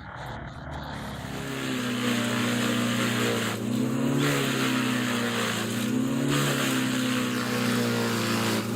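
An engine running steadily that grows louder over the first two seconds; its pitch dips and recovers twice, as if briefly loaded.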